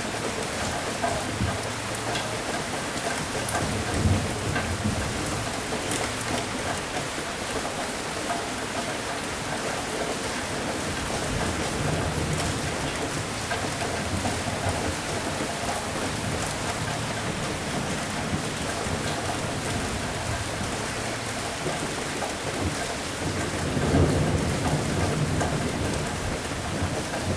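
Steady heavy rain with thunder rumbling in low swells, loudest about four seconds in and again near the end.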